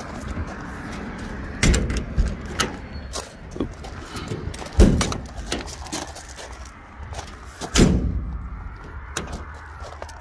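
Metal compartment door of a utility service body being pushed and banged shut over and over, a string of knocks and latch clicks with the hardest bangs about five and eight seconds in. The door is sticking and will not latch easily.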